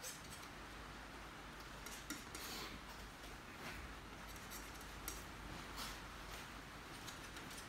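Faint scratchy strokes and light taps of a paintbrush working paint on a canvas and on a paper palette, with a few sharper scrapes about two seconds in and again about five seconds in.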